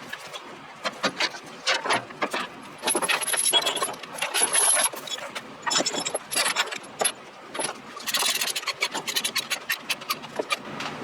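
Steel tie-down chains and their binders being handled and tightened: irregular metal clinks, rattles and scraping, with a run of quick clicks about eight seconds in.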